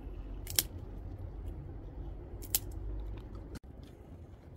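Dry twigs handled for a small fire, with two sharp snaps about two seconds apart over a steady low rumble.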